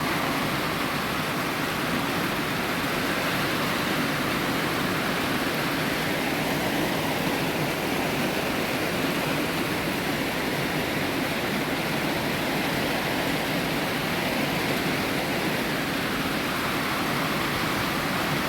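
A steady, even hiss that starts abruptly and holds at one level without clear crackles or pitch.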